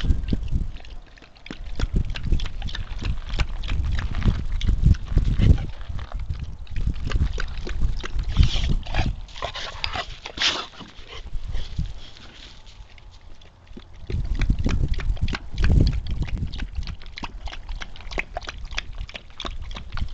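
A Boxer dog close to the microphone, with many irregular clicks and low thumps and a few short higher-pitched sounds about halfway through.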